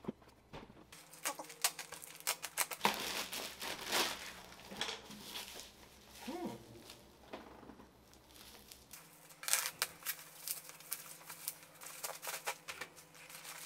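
Plastic packaging rustling, crinkling and tearing as a courier pouch is cut open and a bubble-wrapped package is unwrapped by hand, with many small irregular crackles and clicks.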